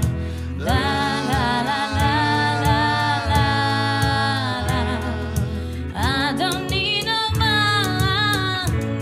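Live band music: a singer holds long, wavering melodic notes over instrumental backing with a steady beat.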